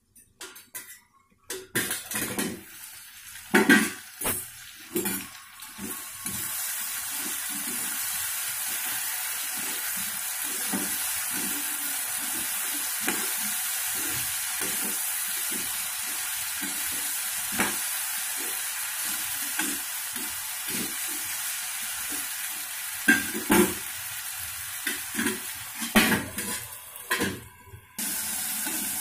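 Chopped bottle-gourd peel and potato sizzling over high heat in a steel kadhai, stirred with a steel spatula that scrapes and knocks against the pan in a steady rhythm. A few clanks in the first seconds come from the pan's steel lid being handled, and the sizzle becomes steady about six seconds in.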